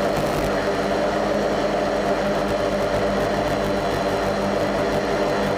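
Hexacopter's electric motors and propellers running steadily in flight: a constant hum with several steady overtones.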